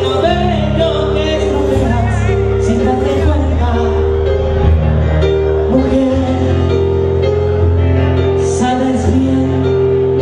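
Live salsa band playing, with a male lead vocalist singing into a microphone over held bass and chords.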